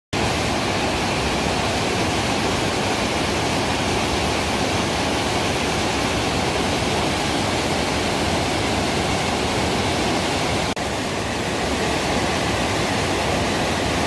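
Two-tiered waterfall plunging into a deep pool: a steady, even rush of falling water, broken only by a split-second dip near the end.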